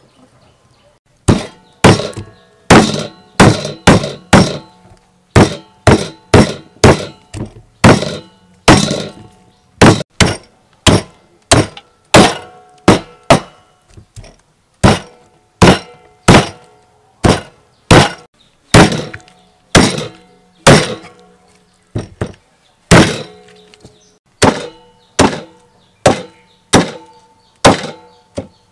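Meat cleaver chopping a roasted pork leg, through meat and bone, on a wooden chopping block. Sharp, loud chops, about one or two a second at an uneven pace, beginning about a second in.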